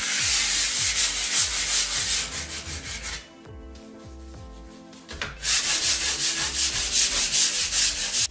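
Sandpaper rubbed by hand in quick back-and-forth strokes over a painted door, smoothing down rough spots in the first coat of paint before the second coat. The rubbing stops for about two seconds in the middle, then starts again.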